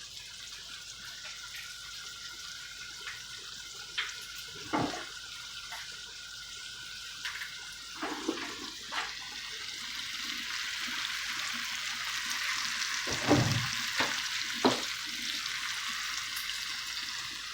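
Food sizzling in a non-stick pan, a steady hiss that grows louder about halfway through, with a few knocks of utensils against the cookware.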